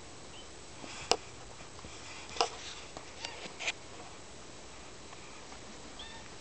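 A few sharp clicks and knocks over a steady faint hiss, the loudest about a second in and a cluster between two and four seconds in, with a faint short high squeak near the end.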